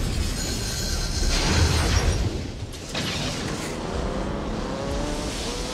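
Film sound of a big-rig tow truck crashing down onto a concrete channel floor: heavy crunching, scraping and rumbling. From about three seconds in, a revving engine note climbs steadily in pitch as the chase accelerates.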